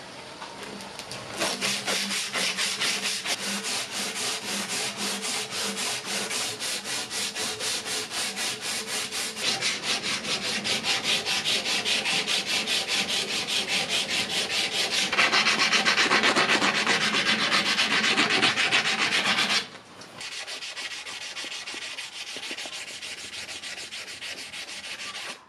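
A strip of sandpaper pulled quickly back and forth around a steel vice handle, shoe-shine style, scratching off old paint and rust in a rapid, even rhythm of strokes. It grows louder and harsher for a few seconds past the middle, then drops abruptly to a quieter rubbing for the last few seconds.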